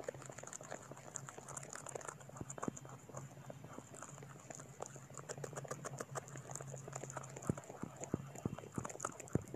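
Faint, irregular clicks and taps over a low steady hum.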